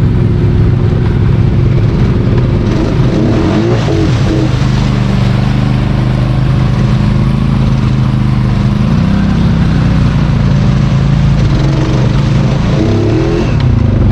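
Off-road vehicle engine running steadily under way, its pitch dipping and rising briefly about three seconds in and again near the end as the throttle changes.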